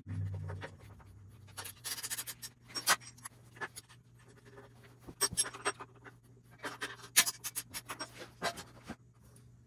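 A T-handle hex driver turning a bolt to fix a steel BMX foot peg to a welding cart's upright as a handle. It makes scattered short, scratchy metal clicks and scrapes in small clusters.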